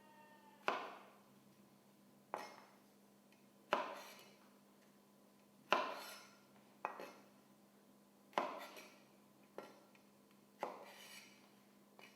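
Kitchen knife chopping down onto a cutting board about eight times, one to two seconds apart, each a sharp knock that dies away quickly: trimming the root ends off garlic cloves one by one.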